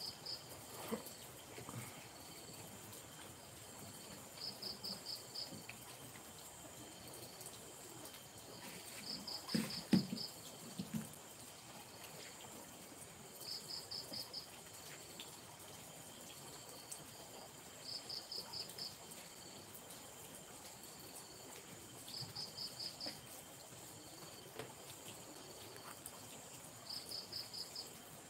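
Night insects: a cricket-like insect chirping in short bursts of five or six quick pulses, repeating about every four to five seconds, over a steady high-pitched insect drone. About ten seconds in there is a brief low knock or rustle.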